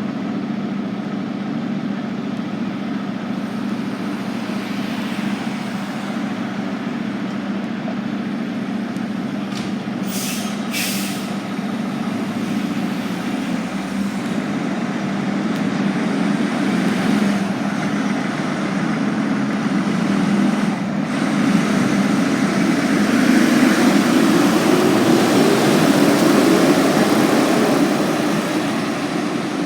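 A fire department ladder truck's engine running as the truck gets under way. The noise grows louder about three-quarters of the way through, then eases near the end. Two short hisses come about a third of the way in.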